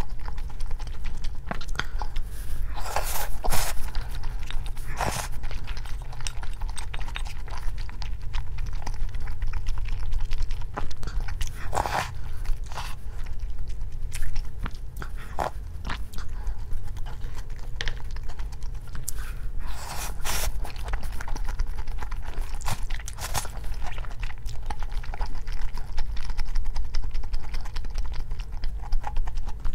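Close-up chewing and biting of food, with a handful of short crunchy bites scattered through, over a steady low hum.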